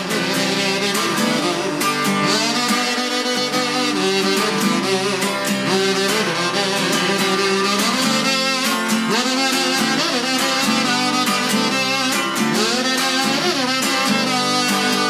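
A kazoo buzzing a melody with sliding, bending notes over a strummed acoustic guitar, an instrumental break with no singing.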